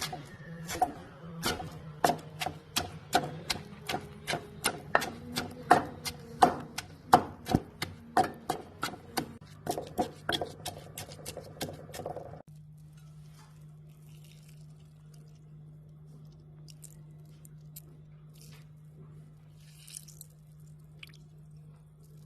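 Knife chopping ingredients on a cutting board: rapid sharp knocks, about two to three a second, that stop abruptly about twelve seconds in. Afterwards only a low steady hum and a few faint ticks remain.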